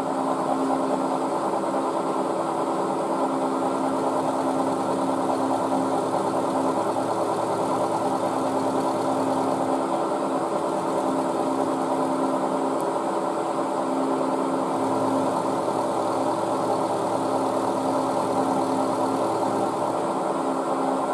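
Milling machine running steadily with a constant whine, its spinning end mill cutting an angled edge on a small metal end cap held in a chuck on a dividing head.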